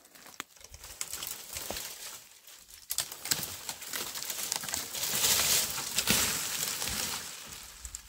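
Dry dead wood cracking and snapping as a leafless tree is pulled over by hand, building to a dense crackling rustle about five seconds in as it topples onto the stony ground, then fading near the end.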